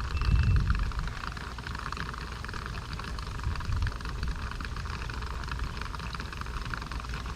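Diesel fuel being poured into the empty fuel tank of a Ford F350 with the 6.0 PowerStroke: a steady splashing pour, with a low rumble underneath.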